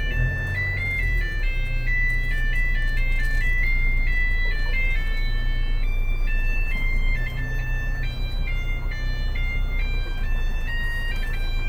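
A simple electronic beeping melody, one pure note at a time stepping up and down in a jingle-like tune, over the steady low hum of a car engine.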